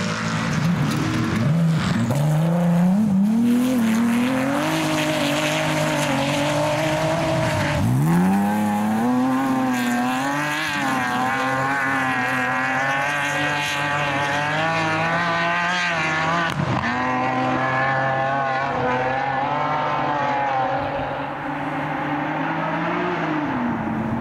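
Off-road racing buggy engines revving hard as the cars race past. The pitch climbs and then drops sharply several times as they change gear.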